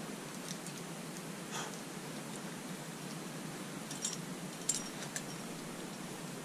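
Steady background hiss with a few small metallic clinks of climbing gear such as carabiners: one about a second and a half in, then three more between four and five seconds in.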